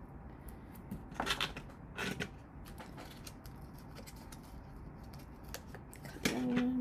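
A few short clicks and clatters of small make-up items being handled and set down, with one cluster a little over a second in and another about two seconds in. Near the end comes a brief voiced hum.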